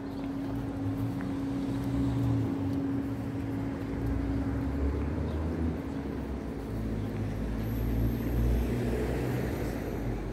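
City street traffic: a large vehicle's engine running, with a steady hum for about the first five seconds and a low rumble that swells and eases after that.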